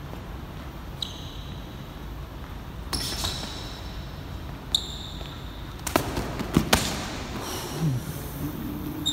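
Boxing sparring in a gym: sneakers give short squeaks on the hard court floor about a second in, near five seconds and at the end. Sharp impacts of gloved punches land around three seconds, with several more between six and seven seconds.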